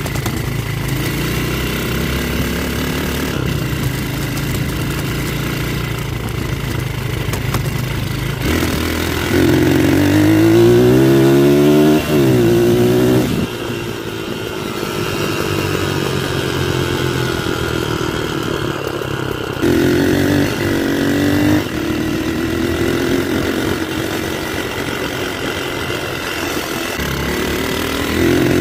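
Dirt bike engine running while riding at low speed, then revving up twice, about a third of the way in and again about two-thirds in, each time climbing in pitch and dropping back as it comes off the throttle or shifts.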